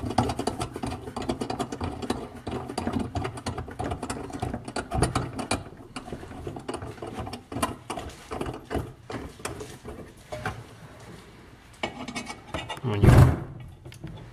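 Irregular small clicks and scrapes of a metal thumbscrew and bracket being turned and handled against a plastic bucket rim, with a single louder thump about a second before the end.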